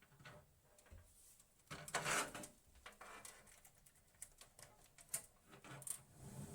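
Quiet handling noises of computer hardware being worked on by hand: scattered small clicks and taps, with a louder rustle or scrape about two seconds in.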